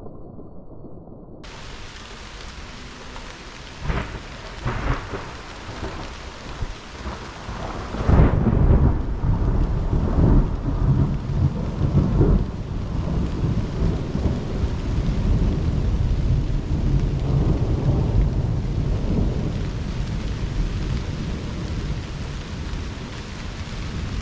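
Thunder from a severe thunderstorm with rain falling: sharp cracks a few seconds in, then a loud rolling rumble breaks out about a third of the way through and keeps going with further peaks, slowly easing.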